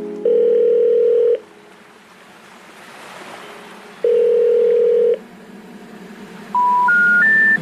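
Telephone signal tones: a long steady tone twice, a few seconds apart, then three short beeps stepping up in pitch, the special information tone that announces an unreachable or disconnected number.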